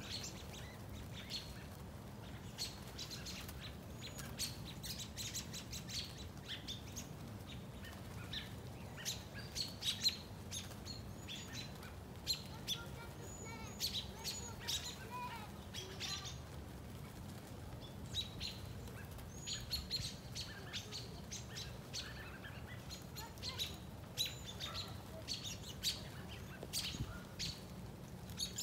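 A flock of American robins calling from a bare tree: a busy stream of short, sharp chirps and thin high calls, thickest in bursts around the middle and later on. A steady low rumble runs underneath.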